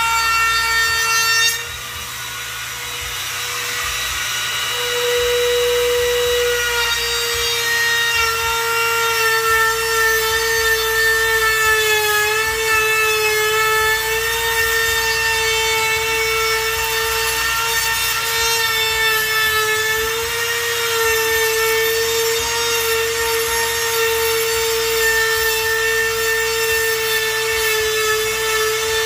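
Milwaukee compact router running at speed, a steady high motor whine that sags slightly in pitch now and then as the chamfer bit cuts along the edge of a pine board.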